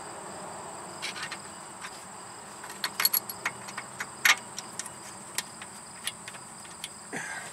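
A few sharp metal clicks and taps from a bolt and hand tools being worked against the steering rack's mounting bracket. The loudest click comes about four seconds in. A steady high trill of crickets runs underneath.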